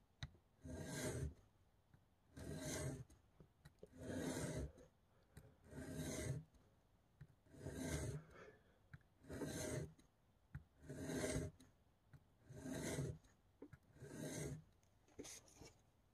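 A Spyderco PM2 Tanto's M4 steel blade is drawn across a wet sharpening stone in single strokes, lifted clear between each. There are nine even strokes, each about a second long and about one and a half seconds apart, as the tanto tip is ground even.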